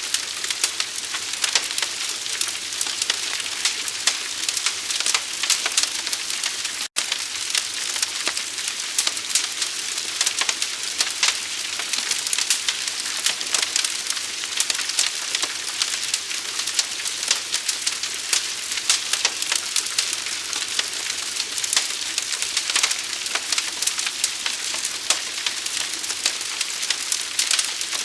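Large fire burning, a steady hiss thick with fine crackling and popping. The sound cuts out for an instant about seven seconds in.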